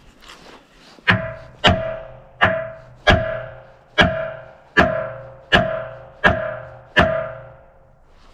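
Hammer striking steel nine times at an even pace, about one blow every three quarters of a second, each blow ringing and dying away: driving out a stuck pivot pin on a log loader.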